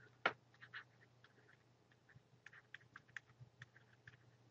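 Faint, irregular clicks and short scratches of a stylus on a drawing tablet as a word is handwritten, the sharpest tick about a quarter second in, over a low steady hum.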